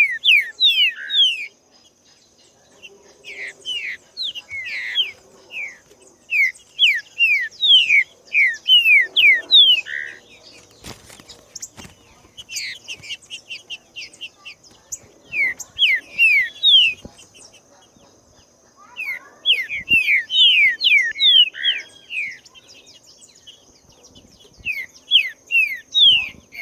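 Green-winged saltator (trinca-ferro) singing: loud phrases of quick, falling whistled notes, repeated again and again with short pauses between phrases.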